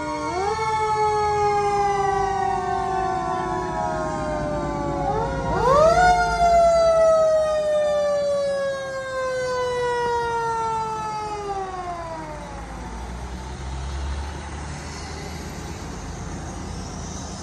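Fire truck siren, pitch jumping up quickly twice and then winding slowly down until it fades out, over a low engine rumble.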